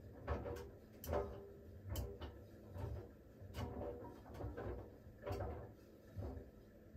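Siemens iQ700 washing machine drum turning slowly during its smartFinish steam programme, with the clothes tumbling and dropping in irregular soft thuds and clicks about once a second over a low pulsing motor hum.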